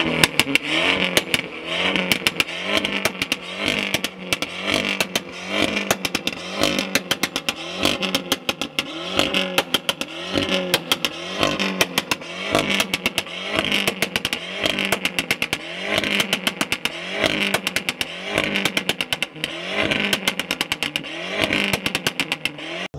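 Alfa Romeo Giulietta's tuned exhaust as the engine is blipped again and again, about once a second, with a rapid rattle of crackles and pops from the tailpipes.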